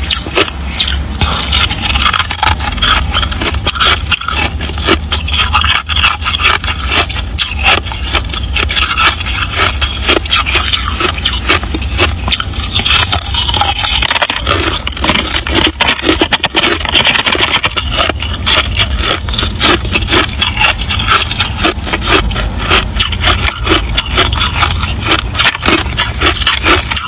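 Crushed ice being crunched and chewed in the mouth, a rapid, unbroken run of crisp cracks and crunches.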